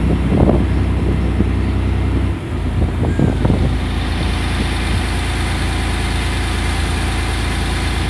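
Steady low drone of a boat's engine running, heard from on board. The sound dips briefly about two and a half seconds in.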